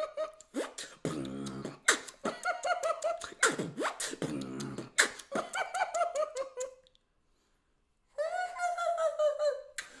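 Beatboxer performing the "laugh" sound: short laugh-like vocal bursts that bend in pitch, mixed with sharp mouth-made percussion clicks. It breaks off for about a second and a half of silence about seven seconds in, then resumes.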